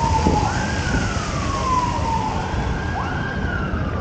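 Emergency vehicle siren wailing: two cycles, each a quick rise in pitch followed by a slow fall, about every two and a half seconds, over a steady low street rumble.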